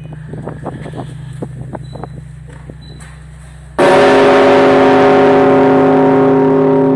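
The Solovetsky Monastery's largest bell, weighing 14 tonnes, is struck once about four seconds in. It gives a sudden loud clang that rings on in several steady pitched tones, slowly fading. Before the strike there is a steady low hum with scattered faint knocks.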